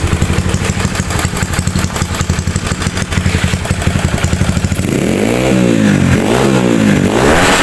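Honda CS1 four-stroke single in a KTM 85 dirt-bike frame, running through an aftermarket Norifumi muffler. It idles with an even, pulsing beat, then about five seconds in it is blipped about three times, the note rising and dropping back with each rev.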